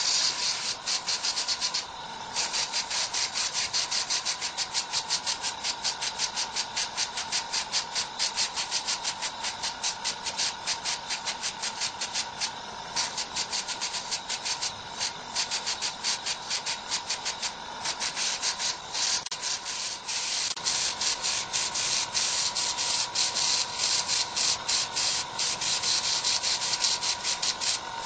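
Airbrush hissing in rapid short bursts of air, several a second, as the trigger is flicked on and off, over a steady high tone.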